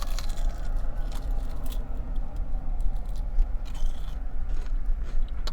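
A chicken nugget being dipped in a plastic barbecue sauce cup, then bitten and chewed, with small scrapes and clicks. Under it runs a steady low rumble.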